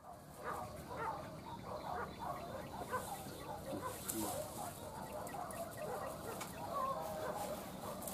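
Chickens clucking faintly, many short calls scattered throughout, over low outdoor ambience.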